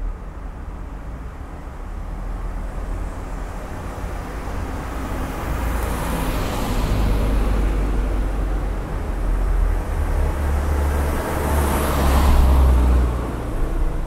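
Cars passing on a quiet street over a low traffic rumble. One swells up and passes about halfway through, and a second, louder one passes near the end and fades away.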